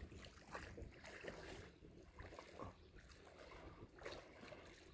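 Near silence with faint, irregular splashing of water.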